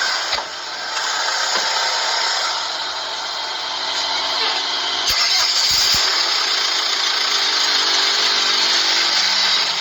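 A vehicle engine running with its radiator drained of water. About five seconds in the sound brightens and grows louder, and it then runs on steadily.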